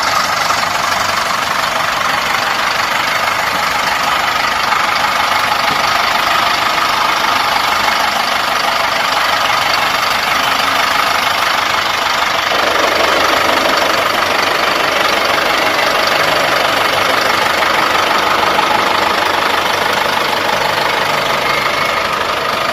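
Ford 6600 tractor's three-cylinder diesel engine running steadily as it tows a loaded trailer through shallow water, growing fuller from about halfway through.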